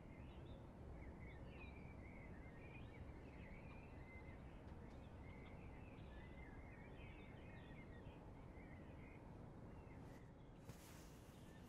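Faint outdoor ambience with small birds chirping and twittering over a low rumble. About ten seconds in, a soft hiss joins it.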